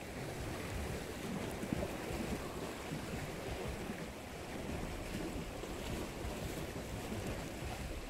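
Steady wash of small sea waves against shore rocks, mixed with wind rumbling on the microphone.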